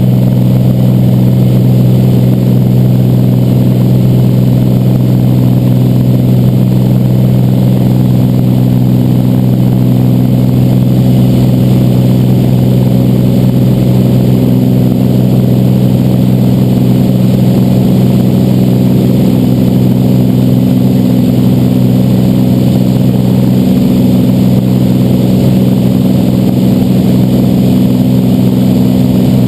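Cessna 206's six-cylinder piston engine and propeller droning steadily in flight, heard from inside the cockpit.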